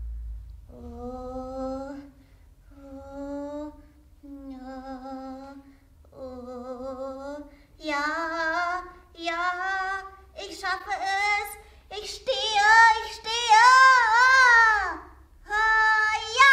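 A woman's voice singing a run of about ten drawn-out wordless notes, each held for around a second with a wavering pitch. The notes climb step by step and grow louder about halfway through, then a long note near the end slides down in pitch.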